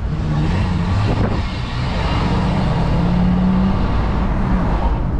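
Open-sided tour vehicle driving along a road: its engine hums steadily under wind and road rumble, the engine note climbing a little around the middle and easing off near the end.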